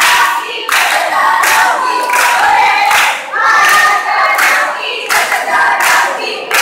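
A cheer squad shouting a cheer chant in unison, about one shout every three-quarters of a second.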